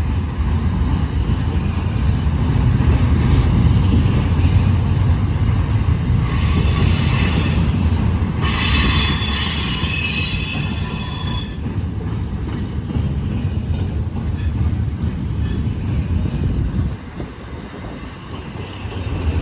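Freight train rolling slowly past with a steady low rumble of wheels on rail. Its wheels squeal twice in the middle: a short squeal about six seconds in, then a longer one of about three seconds. The rumble drops away near the end.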